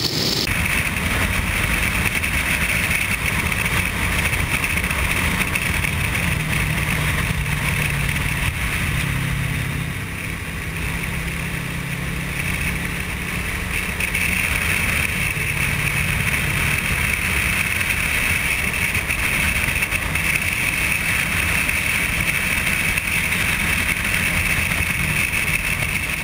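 A sport motorcycle riding at road speed: steady wind rush over the microphone with the engine's low drone underneath, easing slightly for a moment about ten seconds in.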